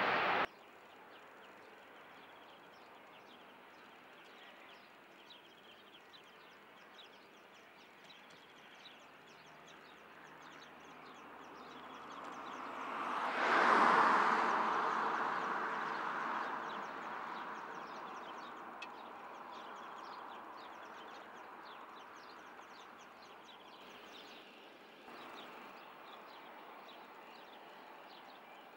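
Airbus A350-900's Rolls-Royce Trent XWB jet engines at taxi power: a hiss that swells for a few seconds to a peak about halfway through, then fades slowly as the airliner taxis past. Loud jet noise cuts off abruptly just after the start, and small birds chirp faintly throughout.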